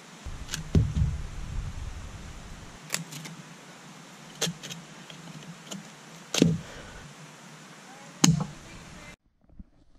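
A few scattered sharp knocks and clicks of scrap sticks and a folding saw being handled while cutting stakes, over a low hiss with a low rumble in the first couple of seconds; the sound cuts off to silence near the end.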